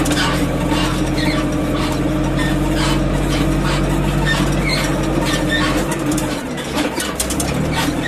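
Deutz-Fahr Agroplus 90 F tractor's diesel engine running steadily under way on a rough forest track, with knocks and rattles from the machine. About six seconds in, the engine note drops for about a second, then picks back up.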